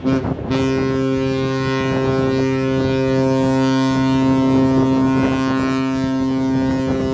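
Cruise ship's horn sounding one long, steady blast, starting about half a second in: the ship's departure signal as it leaves the harbour.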